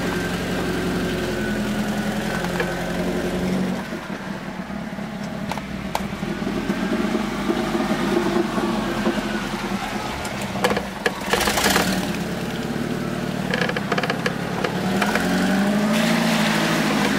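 Off-road vehicle's engine running under load on rough ground, the revs dropping back about four seconds in and rising again near the end. A cluster of sharp knocks and clatter comes about eleven seconds in.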